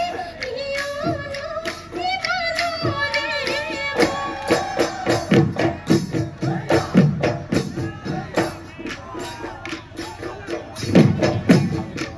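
Assamese Bihu music: dhol drums beaten in a fast, driving rhythm by the dancing troupe, with a pitched melodic line of singing over them, and a burst of heavier drum strokes near the end.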